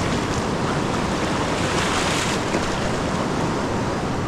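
Fast-flowing mountain river rushing, a loud, steady roar of water.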